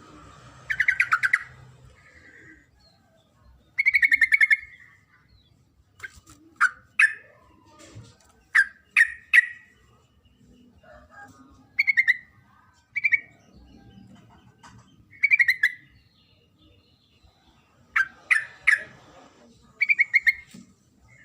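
Yellow-vented bulbul (trucuk) calling: short bubbly rattling phrases and sharp single or paired notes, repeated every second or two. It is a female's call to a male, used as a lure.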